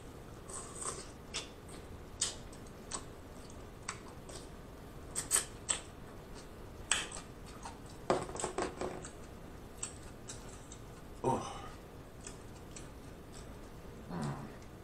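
Close-miked eating sounds: scattered wet lip smacks, slurps and chewing clicks as sauce-dipped king crab meat is eaten, irregular and fairly quiet, with a brief low hum near the end.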